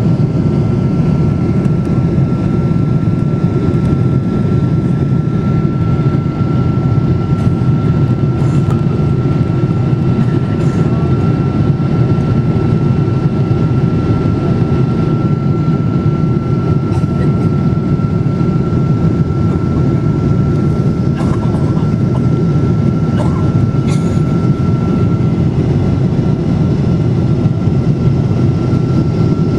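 Steady rumbling roar of a Boeing 777-200's jet engines and rushing airflow heard inside the passenger cabin in flight, with a thin steady whine that fades out near the end.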